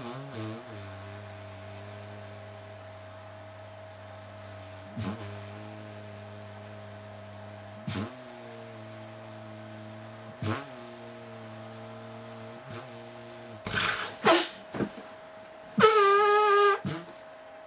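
A man's voice holding long, low, drawn-out moans, each several seconds, broken by short sharp intakes of breath. About sixteen seconds in it jumps to loud, high-pitched cries.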